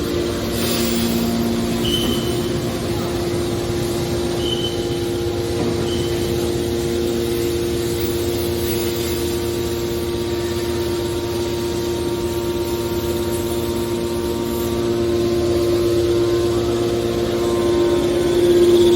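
A hydraulic metal shear baler running, with a steady hum from its power unit at a constant pitch. There are a few short high beeps or squeaks a few seconds in.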